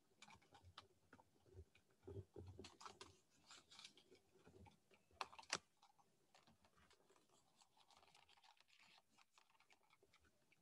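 Near silence with faint, scattered clicks and taps of a computer keyboard and mouse in the first half or so, then only faint room tone.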